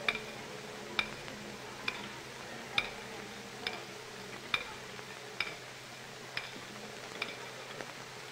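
Faint, sharp clicks at a steady pace of a little more than one a second: a drummer's stick or rim clicks keeping time while the marching band moves into formation without playing.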